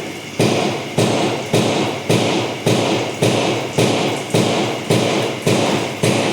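Steady, even knocking: about two thumps a second, each starting sharply and fading before the next.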